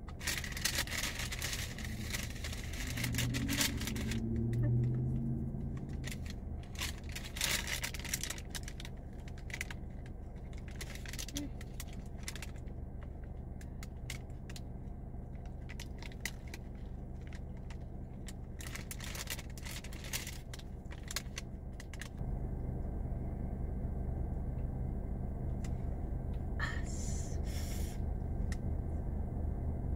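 Paper pastry bag rustling and crinkling in repeated short bursts as it is handled and opened, over a steady low rumble in the car cabin that steps up louder about two-thirds of the way through. A brief low hum sounds about four seconds in.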